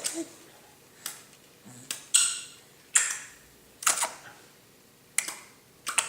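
A series of sharp clicks or smacks, about eight or nine spaced irregularly around a second apart, several trailing off in a brief hiss.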